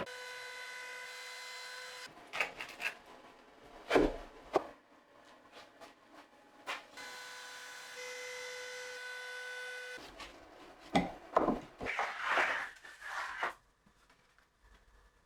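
Wooden workpieces being handled: sharp knocks and rubbing of wood on wood, busiest near the end. A steady machine whine sounds twice, for about two seconds at the start and about three seconds in the middle, stopping abruptly each time.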